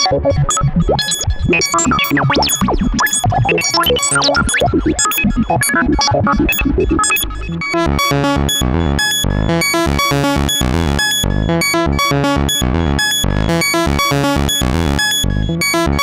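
Roland SH-101 analog monosynth playing a fast sixteenth-note sequence through tape echo and plate reverb. For the first half, gliding pitches sweep through the echoes. About seven and a half seconds in, it settles into clean, evenly stepped rapid notes.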